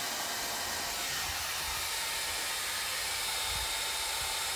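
Handheld hair dryer running steadily, a constant hiss with a faint high whine. It is blowing hot air at a front license plate to soften the double-sided tape holding it to the car's bumper.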